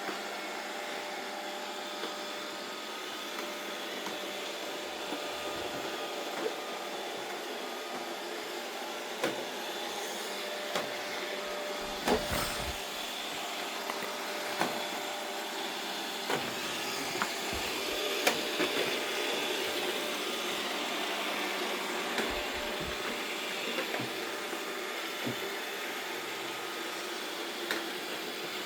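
Robot vacuum cleaner running with a steady hum, with occasional sharp knocks and clicks.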